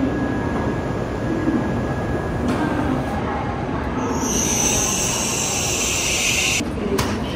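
Shinkansen bullet train pulling into the platform, a steady rumble with a loud high hiss from its wheels and brakes that starts about four seconds in and cuts off suddenly about two seconds later.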